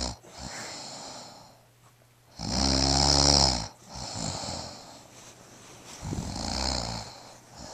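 A person snoring. There is one loud, rattling snore about two and a half seconds in, lasting about a second, then a softer breath out. A weaker snore follows about six seconds in.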